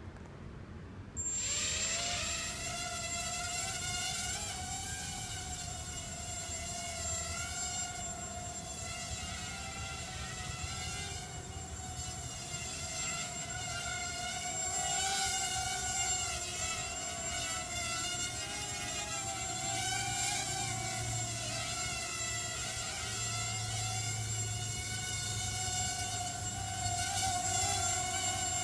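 Hubsan X4 FPV micro quadcopter's four small brushed motors and propellers spinning up with a rising whine about a second in, then a steady high whine that wavers in pitch as the throttle changes in flight.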